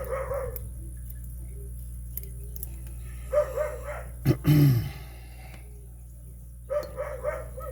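A dog yipping and barking in short groups of quick, high yips, about three and a half seconds apart. One louder, deeper bark comes about four and a half seconds in. The dog is unsettled and wants attention. A steady low hum runs underneath.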